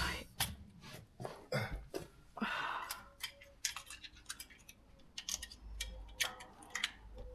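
Hand tools being handled: irregular light clicks and clinks, with a short rustling scrape about two and a half seconds in.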